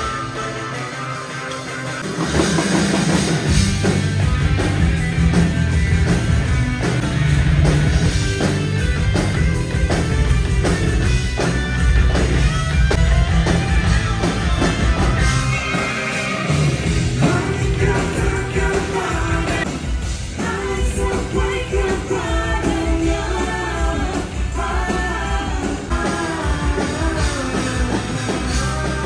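Rock band playing at a concert soundcheck, heard through the stage PA: after a quieter opening, drums and bass come in about two seconds in, and a voice sings over the band from a little past halfway.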